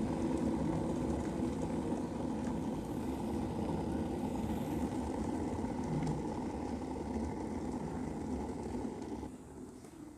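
Prestige 1.7-litre stainless-steel electric kettle at the boil: a steady noise of boiling water and escaping steam, which drops away sharply about nine seconds in.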